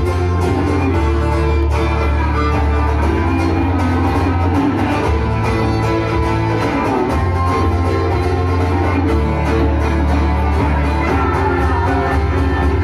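Acoustic folk band playing live: strummed acoustic guitar, fiddle and upright bass, the bass notes shifting every second or two under a steady strummed rhythm.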